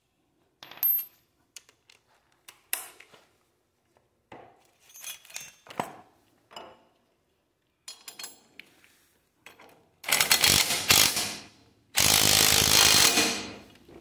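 Scattered metal clicks and clinks of sockets and bolts being handled, then two loud runs of a cordless power driver, each about one and a half to two seconds, spinning a socket to drive in the bolts of a disc brake caliper bracket.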